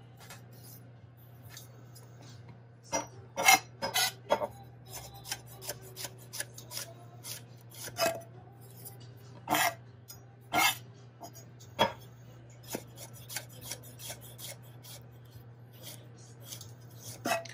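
Chef's knife slicing garlic cloves on a wooden cutting board: irregular taps of the blade against the board, a few of them louder knocks. A low steady hum sits underneath.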